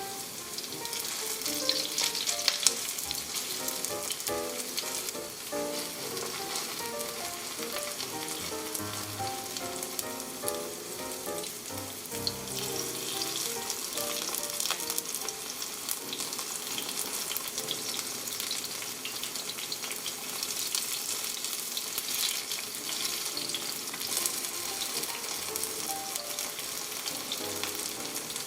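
Potato-starch-coated zucchini pieces shallow-frying in oil in a pan: a steady sizzling hiss with crackling, and a few sharper pops about two seconds in. A soft tune of short notes plays faintly underneath.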